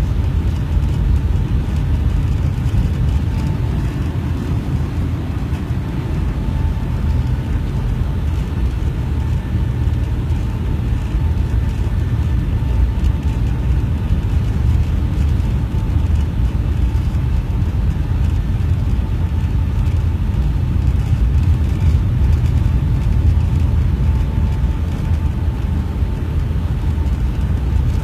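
Airliner cabin noise in flight: a loud, steady low rumble of engines and airflow heard from a window seat, with a faint steady whine above it.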